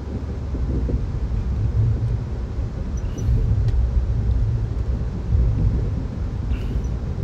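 Steady low rumble of the Amtrak California Zephyr passenger train, heard from inside the car as it crosses over a switch onto another track, with a few faint clicks.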